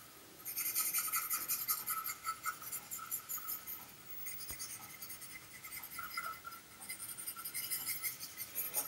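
A fast, uneven scratchy rasping, high in pitch, that flickers throughout and grows louder and denser near the end.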